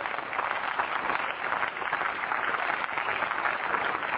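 Applause from many members of parliament: dense, steady clapping from a large crowd.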